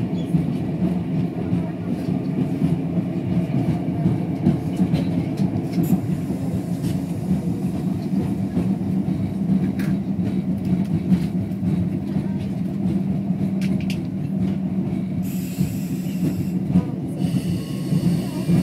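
Running noise heard inside a Talgo passenger coach at speed: a steady low rumble of wheels on rail, with occasional sharp clicks.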